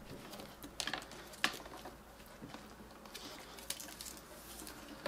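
Faint handling noises of hands measuring out material: scattered light clicks and rustles, the sharpest about a second and a half in.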